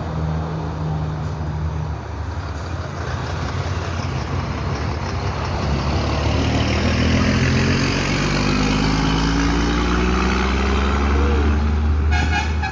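Mercedes-Benz 1620 truck's diesel engine growling, its pitch climbing slowly through the middle as the revs build, with a brief horn toot near the end.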